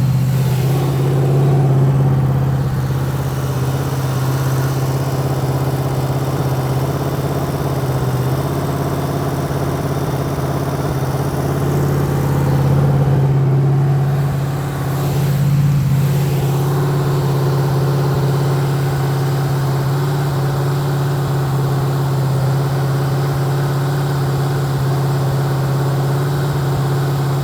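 Rebuilt 350 small-block V8 running steadily at about 2,000 RPM to break in a new camshaft, while the ignition timing is advanced. The engine note dips briefly about halfway through.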